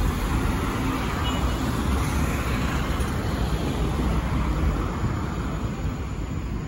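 Jet airliner engines after takeoff: a steady rumble and hiss that fades slightly near the end.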